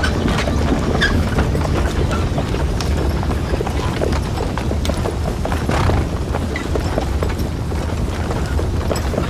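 Horses' hooves clopping irregularly on hard dry ground, several animals at once, over a steady low rumble.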